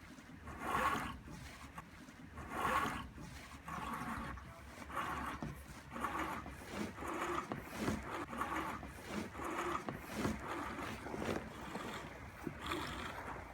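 Kayak anchor trolley line being pulled hand over hand through its pulleys to move the anchor ring toward the stern, with a repeated rasping pull about once a second.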